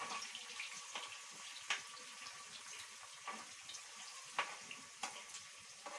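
Chopped tomatoes sizzling as they fry in a pan, with a few short clicks of a spoon stirring against the pan.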